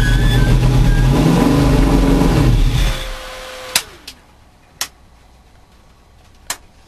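Car engine running and revving, then cut off about three seconds in; a fading whine and a few sharp clicks follow.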